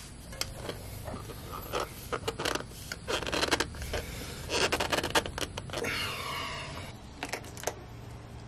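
A new spin-on oil filter being screwed onto a Ford 3000 tractor engine by hand: rubbing and scraping of hands on the metal canister in short bursts, with scattered clicks. A few light clicks near the end.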